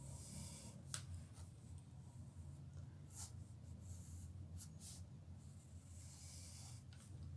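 Faint pencil strokes scratching on paper, in short bursts with a few light taps, over a low steady room hum.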